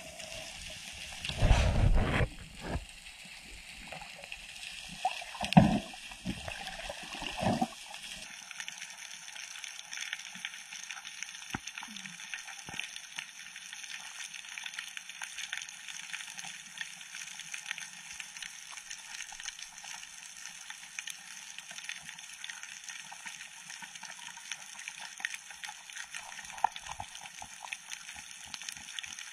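Water splashing and gurgling in several loud bursts during the first eight seconds, as a diver moves at the surface. After that comes steady underwater ambience: a high hiss with dense, fine crackling.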